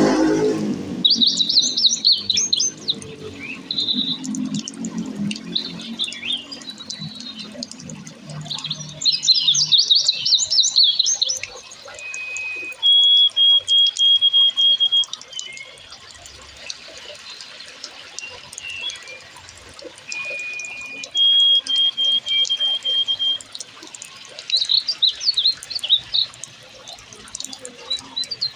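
Forest birds chirping and trilling, with two runs of quick even notes held on one high pitch, over the sound of running water that is strongest in the first few seconds.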